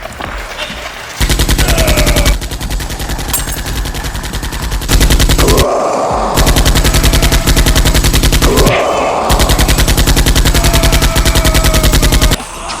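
Rapid automatic gunfire, a machine-gun sound effect firing in long, fast bursts, starting about a second in and stopping shortly before the end.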